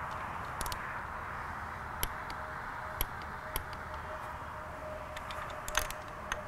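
Irregular sharp metallic clicks of a ratchet and torque wrench as the input shaft retaining collar bolts on an NV4500 transmission are run down and torqued to 22 foot-pounds, over steady shop background noise.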